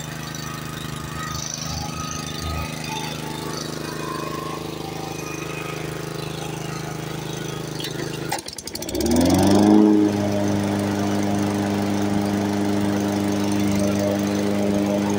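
Weibang WB537SCV petrol lawn mower engine running steadily, freshly cold-started. About eight seconds in there is a short rattle, and the engine speeds up over a second or so, then holds steady at a higher pitch.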